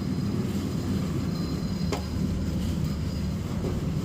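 Steady low rumble of an engine running, with one short click about two seconds in.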